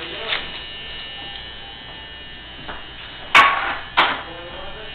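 A steady electric buzz, with two sudden loud sounds about half a second apart a little past the middle.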